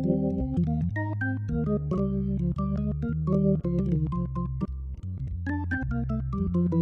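Hammond XK-5 drawbar organ playing a jazz tune: the right hand runs a line of single notes on the upper manual over chords held by the left hand on the lower manual.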